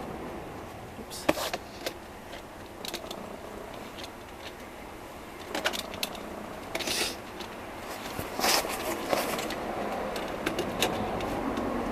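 Irregular clicks, knocks and scrapes of a dryer vent cap being handled and worked into the wall opening, with a few short rattling bursts.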